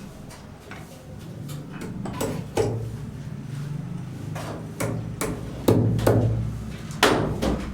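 Hammer blows, irregular and spaced about half a second to two seconds apart, with the loudest strikes near the end, over a low steady hum.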